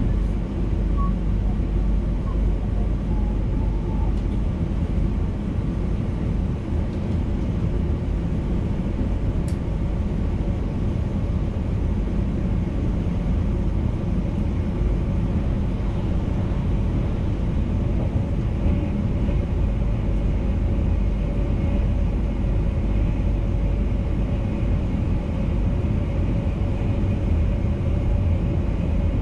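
VIRM double-deck electric intercity train running at line speed, a steady rumble of wheels on the rails heard inside the driver's cab, with a faint steady hum underneath.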